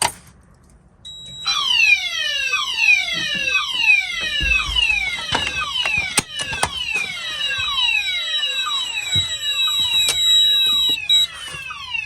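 Fire alarm sounders start up about a second in, playing the DIN tone: a falling sweep repeated about once a second, with several sweeps overlapping. A steady high-pitched tone runs alongside and stops near the end.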